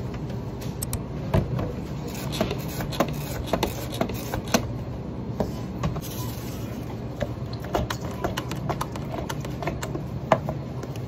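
Steady hum of café counter equipment, with scattered sharp clicks and knocks as a paper cup and other items on the counter are handled.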